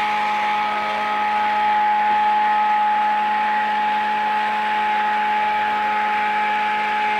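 Immersion (stick) blender running steadily at an even pitch with its blade submerged, mixing lye water into melted oils and shea butter for hot process soap.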